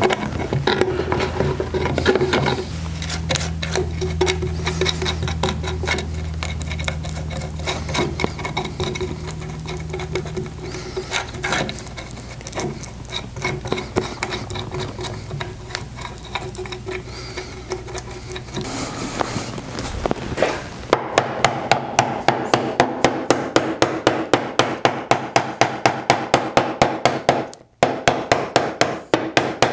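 A mallet strikes a walnut inlay in rapid, even blows, about three a second, with one short pause near the end, driving the tight-fitting inlay down into its glued recess in an end-grain cherry cutting board. Before the blows start, scraping and rubbing as glue is worked into the recess.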